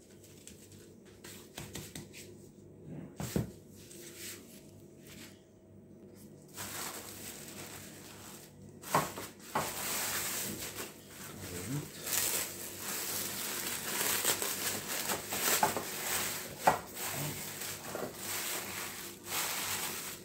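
Plastic cling film crinkling and rustling as it is stretched and pressed over a glass bowl of bread dough by hands in disposable plastic gloves. It begins after a quieter start with a few light taps, about a third of the way in.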